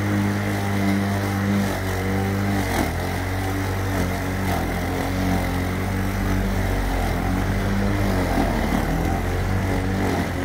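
Makita DLM464 cordless lawn mower running and mowing grass, its motor and spinning blade making a steady hum that wavers slightly as it cuts.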